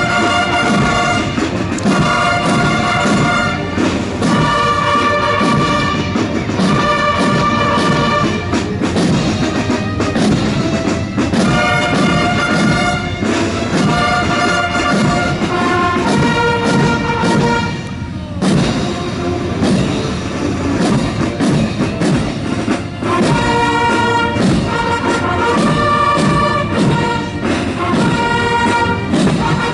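Brass band music with drums: brass playing short repeated phrases over a steady beat, in the manner of a military march.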